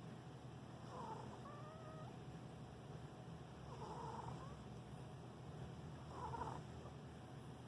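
Sleeping cat snoring: a faint low rumble throughout, with a short, wavering, whistle-like squeak on the breaths, three times about two and a half seconds apart.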